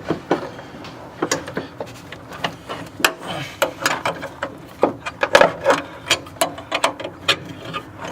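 Hand ratchet clicking in short, irregular runs of strokes while backing out a bolt, with small knocks of tools on metal.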